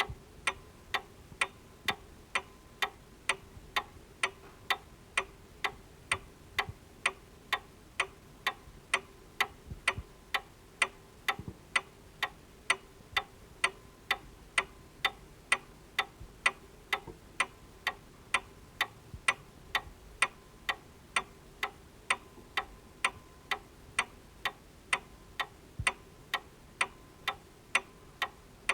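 Table clock ticking steadily, about two sharp ticks a second, over a faint steady hum.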